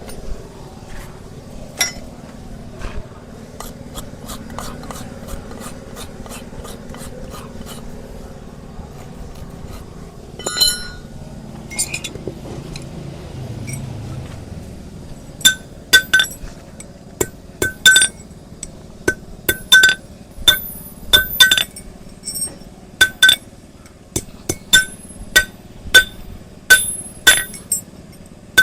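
Hoof-trimming tools working on a donkey's hoof: light scattered clicks at first, then, from about halfway, a steady run of sharp ringing metallic clinks, about one or two a second, like metal striking metal.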